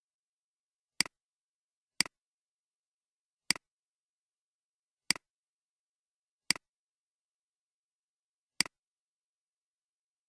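Computer mouse clicking six times at uneven intervals, each a sharp click with a softer release just after, with dead silence in between.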